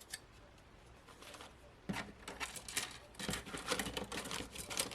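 Plastic model kit parts being handled: a light click at the start, then from about two seconds in a busy run of clicks, taps and rustling as the sprues and bagged pieces are picked up and sorted.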